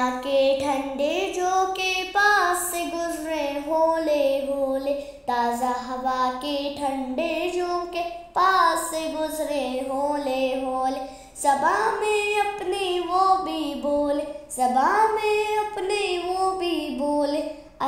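A child's voice singing an Urdu Islamic poem (nasheed) in flowing phrases, with short breaths between phrases about every three seconds.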